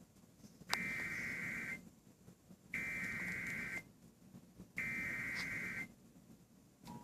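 Emergency Alert System SAME header: three one-second bursts of warbling digital data tones, about a second apart, encoding a tornado warning. The steady attention tone starts right at the end.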